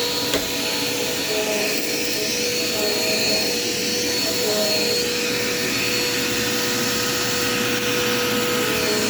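Dirt Devil Quick Power upright vacuum cleaner running steadily, its motor giving a constant whine. It runs on a newly fitted drive belt and sounds smooth, without bumping.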